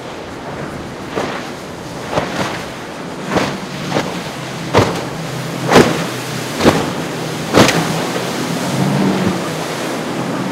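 Boat engines drone over rough water, with sharp slaps and splashes of waves about once a second. The engine drone grows louder near the end.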